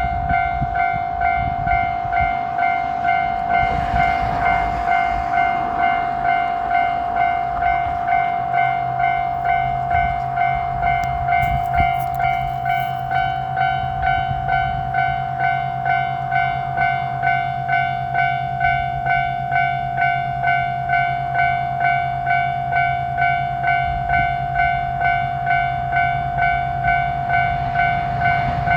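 Japanese railroad crossing warning bell ringing its repeated "kan-kan" ding at an even pace, one steady tone with overtones. A low hum joins about ten seconds in.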